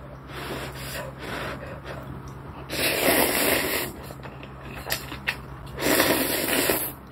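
Ramen noodles and broth slurped from a spoon in two loud slurps, each about a second long, with softer mouth noises between them.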